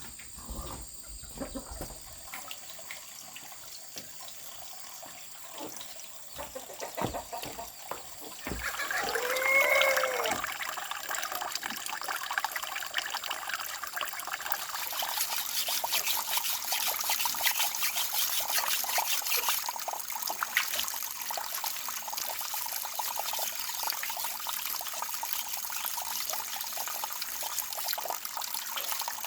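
Water running and splashing steadily, setting in about twelve seconds in and growing fuller a few seconds later. Just before it, a rooster crows once, about ten seconds in.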